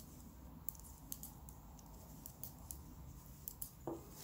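Knitting needles clicking lightly and irregularly as stitches are worked, faint.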